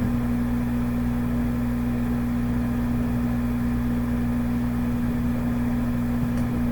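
Steady electrical hum with one strong mid-low tone over lower, evenly spaced tones, unchanging throughout.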